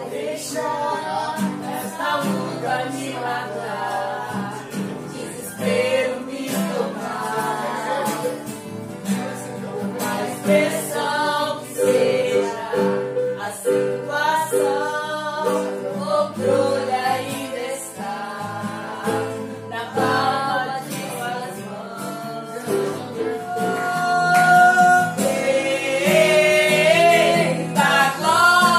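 Live singing led by a woman's voice with others joining in, accompanied by acoustic guitar; the singing grows louder near the end.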